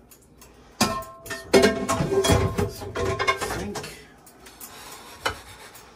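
A frying pan set down into a stainless-steel sink about a second in, with a few seconds of metallic clattering and ringing that dies away, and one more knock near the end.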